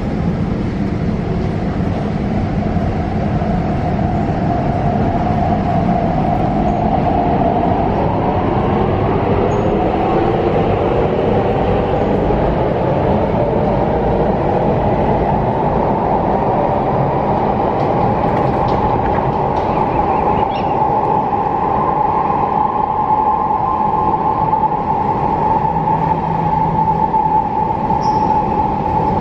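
MTR C-Train metro train pulling out of the station and accelerating past into the tunnel. Its traction motor whine rises in pitch over the first half, then holds steady, over a continuous rumble of wheels on rail.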